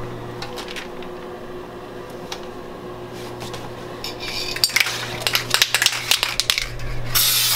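A few light knocks as the taped frame of hydro-dip film is settled onto the water in a plastic tub. About two-thirds through comes a quick rattle of hard clicks, and near the end a loud hiss of spray starts, which fits an aerosol can of activator being shaken and then sprayed onto the film. A steady low hum runs underneath.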